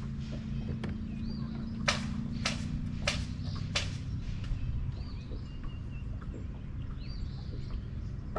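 Outdoor lake ambience: a low rumble with a steady hum that fades about halfway, four sharp clicks in the first half, and faint bird chirps.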